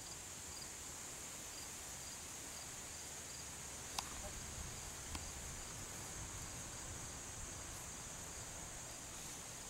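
Steady high-pitched chorus of insects in the grass, with two faint sharp clicks about four and five seconds in.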